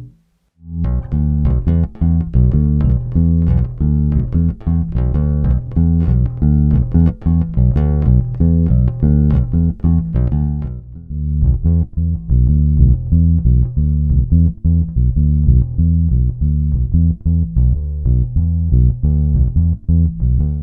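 Fender Precision Bass played with fingers, recorded direct, picking a busy run of single notes. It starts about half a second in after a short gap, dips briefly about halfway through, and stops just before the end.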